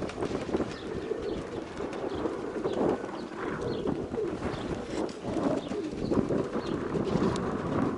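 Domestic pigeons cooing steadily, several birds at once, with a few faint clicks among them.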